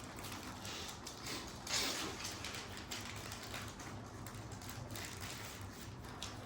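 Quiet clicking and rustling of plastic packaging and small items being handled, with one louder rustle about two seconds in.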